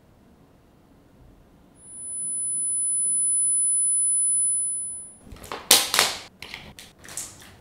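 A single very high, steady tone held for about three seconds, then a quick run of clicks and rustling as hands search through a handbag.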